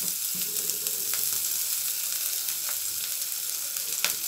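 Hot oil sizzling in a nonstick frying pan as chopped onion and green chilli fry over spluttering mustard seeds. A steady hiss with a few sharp pops, the loudest about four seconds in.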